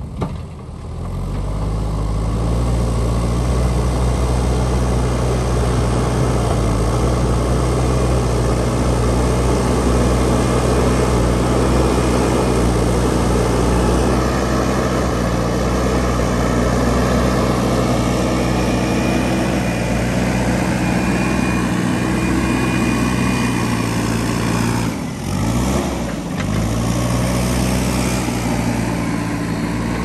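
JCB backhoe loader's diesel engine running steadily under load while the machine works soil. About 25 seconds in the engine note drops briefly, then picks up again.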